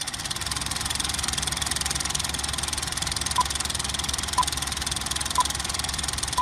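Steady whirring hum with hiss from the Nano Talon FPV model plane's gear, with four short high beeps about a second apart in the second half.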